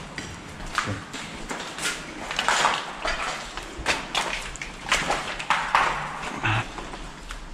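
Footsteps climbing a staircase littered with tangled cables and debris: irregular scuffs, crunches and rattles underfoot.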